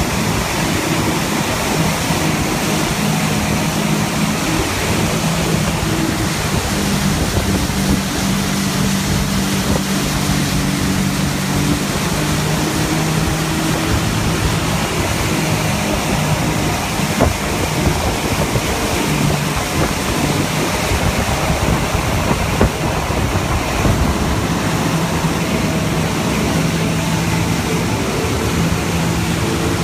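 Motorboat engine running at speed, a steady low hum, under the loud rush of the churning wake and wind on the microphone, with a few brief knocks about halfway through.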